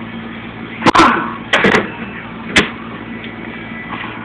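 Four sharp metal knocks with a brief ring after each, two of them close together, as parts of a Ford A4LD automatic transmission are struck or set down during teardown on a workbench.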